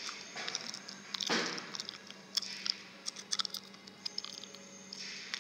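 Faint scattered clicks and short rustles over a steady low hum.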